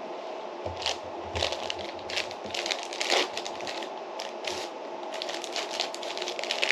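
The plastic lid and inner seal of a Meiji Bulgaria yogurt tub being peeled off and crumpled by hand: a run of irregular crinkles and crackles over a faint steady hum.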